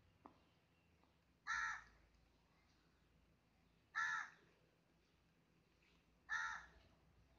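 A crow cawing, three single caws spaced a little over two seconds apart.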